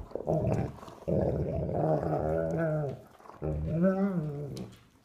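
German Shepherd dogs play-growling as they wrestle: three wavering growls, the middle one lasting about two seconds.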